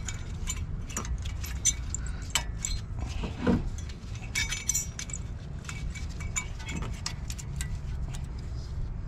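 Light metallic clicks and clinks of steel brake anti-rattle clips being handled and snapped into a caliper bracket, scattered and irregular, over a steady low rumble.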